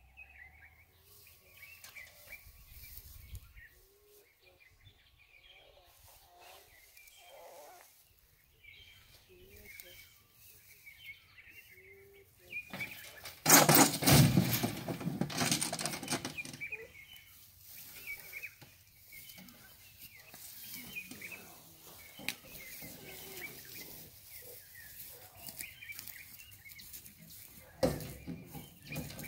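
Birds chirping off and on in the background. About 13 seconds in comes a loud clatter of the metal holding cage and transport crate that lasts about three seconds, with a smaller knock near the end.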